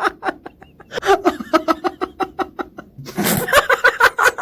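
A person laughing uncontrollably in rapid, repeated high-pitched bursts, several a second, with a loud gasping breath about three seconds in before the laughter carries on.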